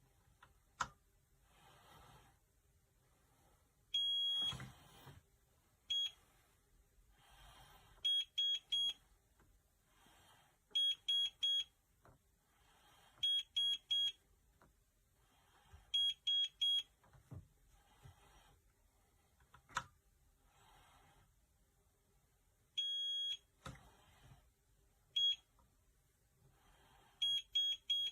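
Electronic keypad of a biometric gun safe beeping as its buttons are pressed: single short high beeps, several quick sets of three beeps, and two longer beeps, with soft clicks and handling noise between them.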